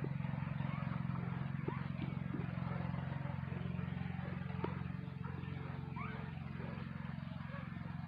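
A motor hums steadily and low. A few faint, short, rising squeaks sound above it.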